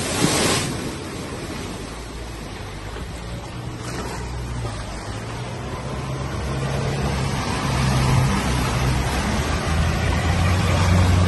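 A vehicle's engine running low and steady as it drives through deep flood water, with water sloshing and rushing around it. A heavy splash comes right at the start, and the water and engine grow louder towards the end.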